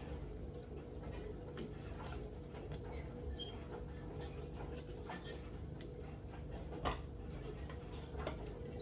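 Scattered faint taps and clicks of small kitchen handling over a steady low hum, with one slightly louder knock about seven seconds in.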